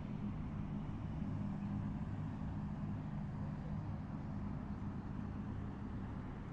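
A steady low engine drone at constant speed, holding a few low tones over a background hum.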